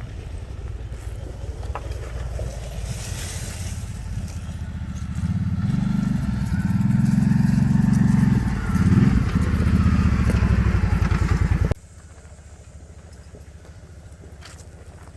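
Kawasaki Brute Force 750 ATV's V-twin engine running, getting louder about five seconds in as it works harder, with a short dip and surge in throttle near the middle. About twelve seconds in the sound drops suddenly to a much quieter low rumble.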